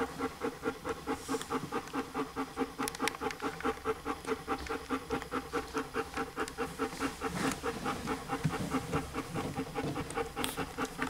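Alaskan Malamute bitch panting fast and steadily, about five breaths a second.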